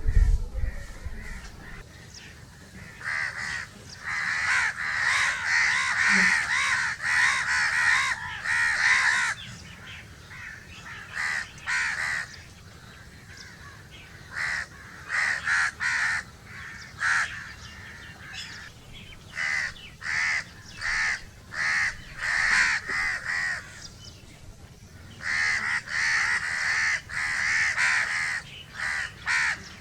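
A large flock of crows cawing, many calling over one another in dense spells from about three seconds in and again near the end, with scattered single caws between. A brief low thump right at the start.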